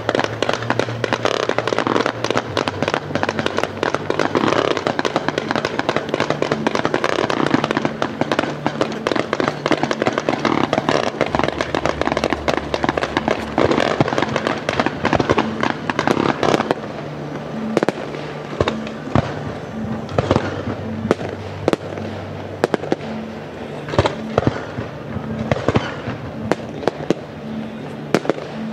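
Fireworks display: a dense, continuous barrage of crackling bangs that, about two-thirds of the way in, thins out to single loud shell bursts about once a second. Music plays underneath.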